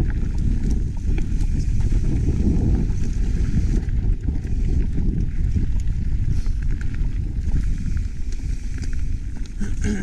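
Mountain bike descending a rough trail: a loud, steady rumble of wind buffeting the camera microphone, with the bike's frame and chain rattling and the tyres clattering over rocks throughout.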